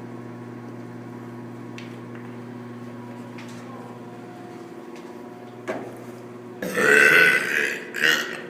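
Loud burping: a long burp lasting about a second comes near the end, with a short one just before it and another just after. A steady low hum runs underneath.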